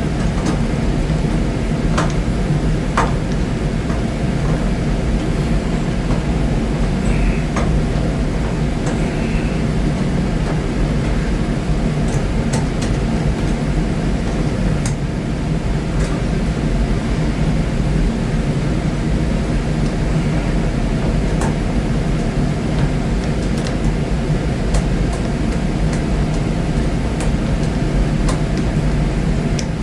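Steady low hum throughout, with scattered light clicks and taps from work on the wires at the dryer's terminal block.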